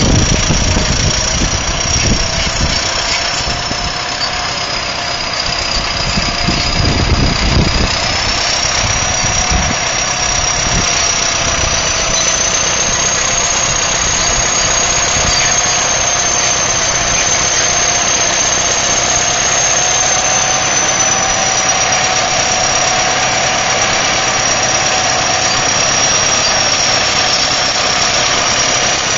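Caterpillar D7 crawler bulldozer's diesel engine running under load while it pushes dirt, with heavy low pulses in the first several seconds. A steady thin high-pitched whine runs over it, along with a lower whine.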